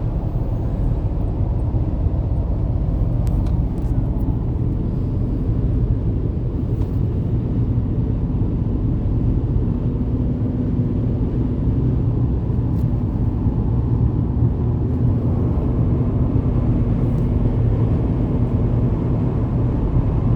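Steady low rumble of a car driving along a road: road and engine noise with no letup.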